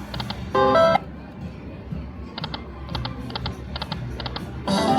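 Dragon Link Autumn Moon slot machine's game sounds: a steady run of quick, high electronic ticks as the reels spin, with a loud stepped chime just under a second in and another near the end.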